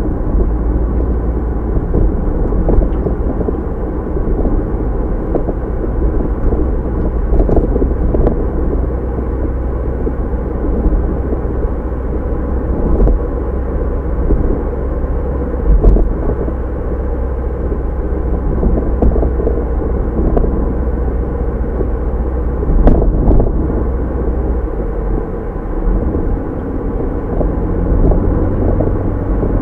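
Car engine running steadily, a low, even sound with a slight change in its lowest tone near the end.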